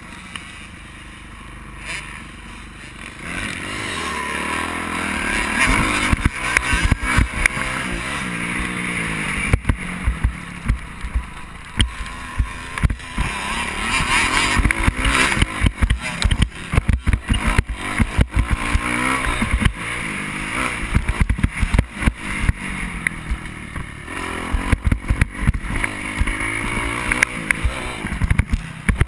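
Onboard sound of a dirt bike being ridden on a motocross track: the engine revs rise and fall again and again, with frequent short knocks from the bumps. It is quieter at first and picks up about four seconds in.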